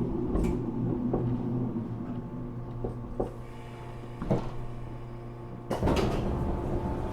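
Interior of a JR Kyushu 415 series electric train car standing still: a steady hum of onboard equipment, with a few scattered knocks and clicks. A sudden, louder burst of noise comes almost six seconds in and fades over about a second.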